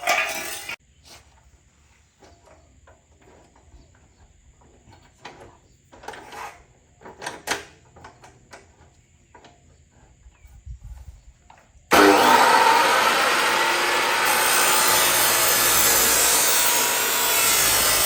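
A few scattered light knocks and clicks, then about twelve seconds in an Allefix 14-inch abrasive cut-off saw starts abruptly and runs loudly with a dense grinding hiss.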